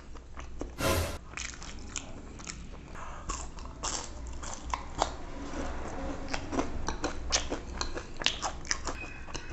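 A person biting and chewing food close to the microphone, with many small mouth clicks and one louder crunch about a second in.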